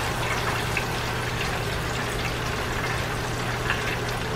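Chicken pieces deep-frying in a pot of hot oil on low-medium heat: a steady sizzle of bubbling oil.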